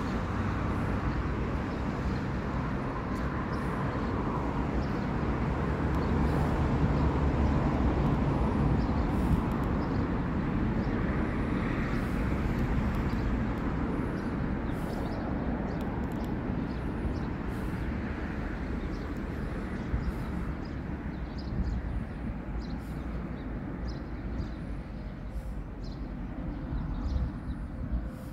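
Steady outdoor background rumble, heaviest in the low range, with scattered faint clicks.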